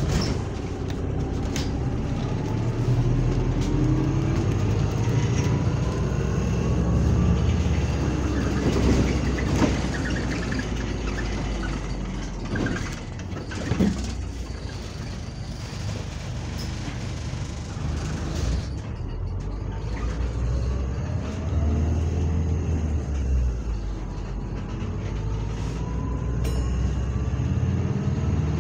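Interior of a double-decker bus on the move: the engine's low, steady drone and body vibration fill the cabin, with rattles and a few knocks. Twice a whine rises slowly in pitch as the bus gathers speed.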